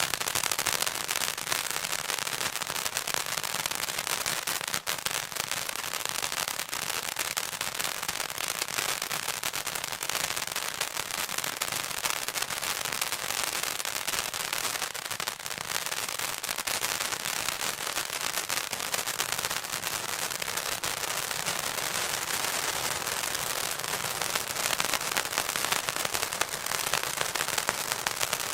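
Golden Tiger 'Popcorn Fountain' ground firework burning: a steady spray hiss packed with rapid popping crackles, growing a little louder near the end.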